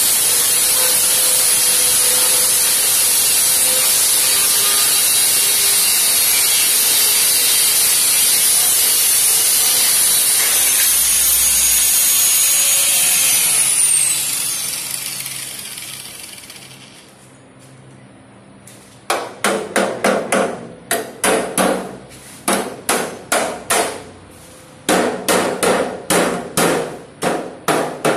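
Angle grinder cutting into the rusted steel chassis rear cross member of a Series Land Rover 88, a steady loud whine and hiss. About fourteen seconds in it is switched off and spins down. After a short lull, a hammer strikes the steel frame repeatedly, about two blows a second, with a brief pause partway.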